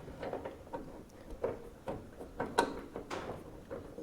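Scattered light clicks and knocks, irregular and a few at a time, from hand work on a car door as it is hung on its hinges and the hinge bolts are fitted.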